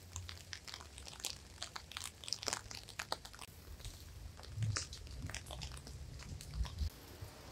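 A meal of abgoosht being eaten: crunching and chewing with many irregular small clicks, and a few soft thumps.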